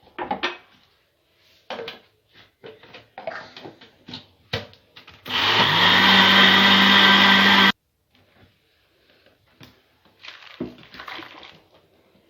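Light knocks and clatter of bowl and utensils, then about five seconds in an electric kitchen mixer switches on, spins up quickly and runs steadily for about two and a half seconds mixing cake batter, and stops abruptly. A few more light knocks follow.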